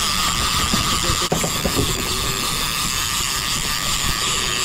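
Conventional big-game fishing reel with a hooked albacore tuna on the line, giving a loud, steady ratcheting buzz without a break.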